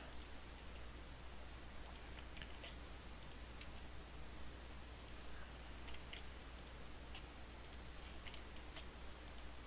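Faint, scattered clicks of a computer keyboard and mouse being worked, over a steady low hum.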